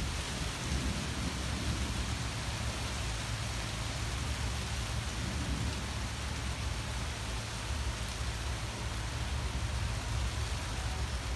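Steady rain falling on tree leaves, an even hiss with a low rumble underneath.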